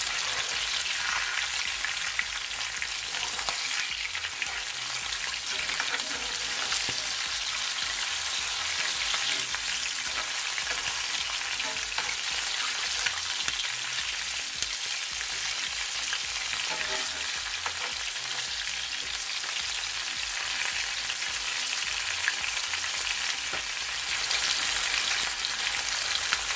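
Whole fish frying in hot oil in a skillet: a steady sizzle with scattered small crackles and pops.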